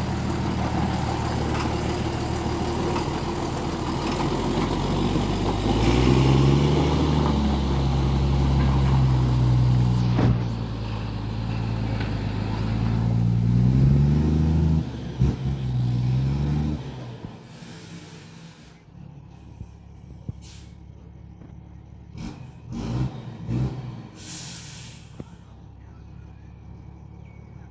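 Truck diesel engine running under way and revving up twice, then shutting off about two-thirds of the way through. After it stops come a few knocks and a short hiss of air.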